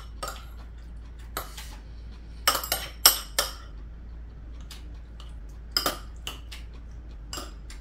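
Metal spoon and chopsticks clinking against ceramic bowls and plates as food is picked up, in scattered sharp clinks with a quick run of the loudest ones about two and a half to three and a half seconds in.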